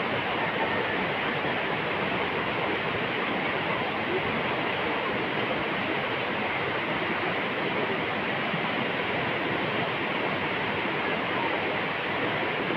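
Steady rushing noise of flowing river water.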